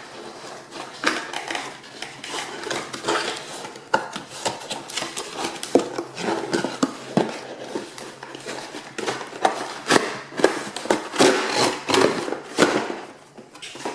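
A plastic toy cash register being unpacked: packaging rustling, with irregular clicks, knocks and clatter of plastic parts being handled.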